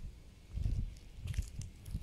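Uneven low rumbling of wind buffeting the microphone, with faint crunching footsteps and small crackles on a dirt surface.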